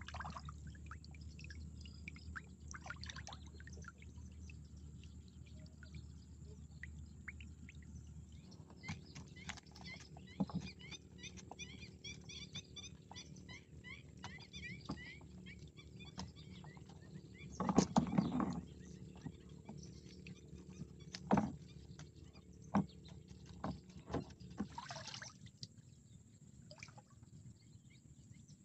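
Small fish being picked out of a cast net by hand: scattered taps, clicks and rustling of fish and netting against the boat, with a louder rustling splash about two-thirds of the way through. Birds chirp rapidly in the background for a few seconds in the middle.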